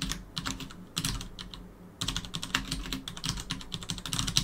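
Typing on a computer keyboard: quick runs of key clicks, with a short pause just before two seconds in.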